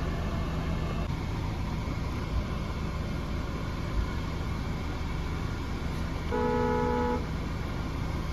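Steady road and engine rumble inside a moving car, with a couple of light bumps. About six seconds in, a car horn honks once for just under a second.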